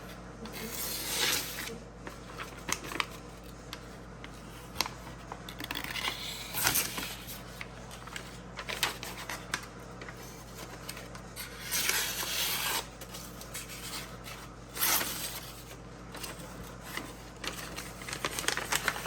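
Freshly sharpened drawknife edge being drawn through a sheet of paper in several short, scratchy strokes, a paper-cutting test of sharpness. The owner judges the edge not yet sharp enough and in need of more refining.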